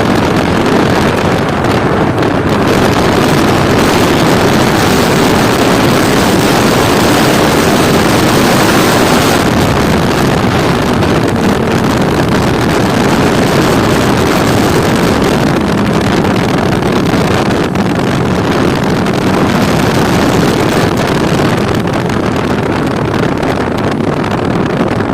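Motorcycle riding at speed: a steady engine drone almost buried under heavy wind noise on the microphone.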